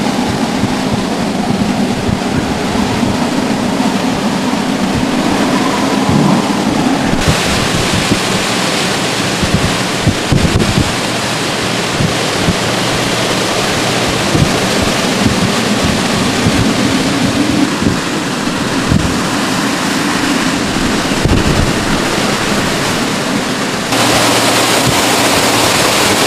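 Hurricane-force wind gusting, with a howling from above through the trees and wires and wind buffeting the microphone. The sound shifts abruptly about seven seconds in and again near the end.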